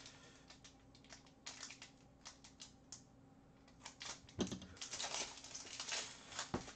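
Foil wrapper of a hockey card pack crinkling and crackling as it is slit open with a utility knife and the cards are slid out. The crackling is sparse at first and busiest from about four seconds in.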